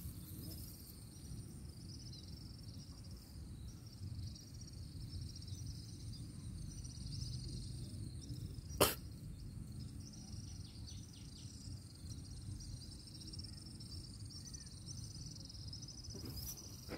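Insects chirping steadily in a high, rapid trill over a low rumble, with a single sharp click about nine seconds in.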